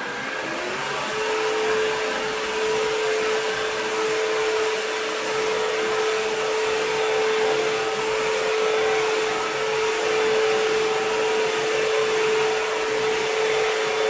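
ILIFE W90 cordless wet-dry floor vacuum-washer running in wet-cleaning mode. Its motor comes on at the start, with a whine that rises in the first second to a steady pitch and holds over a steady rush of air.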